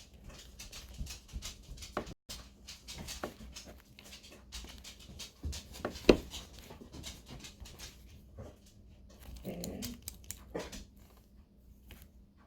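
A pet dog making noises, mixed with scattered clicks and knocks, the sharpest about six seconds in.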